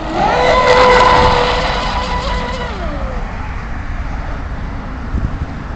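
RC catamaran's brushless electric motor (4-pole, on a 6S LiPo) whining as it throttles up, holding a steady high pitch for about two and a half seconds, then falling in pitch as it eases off; it throttles up again at the very end.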